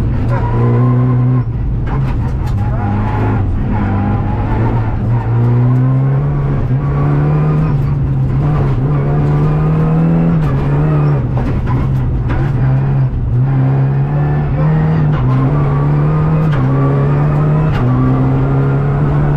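Renault Clio Rally5's turbocharged four-cylinder engine at full throttle, heard from inside the cabin. Its pitch climbs and then drops sharply at each of a series of quick gear changes. Gravel ticks and clicks against the car's underside throughout.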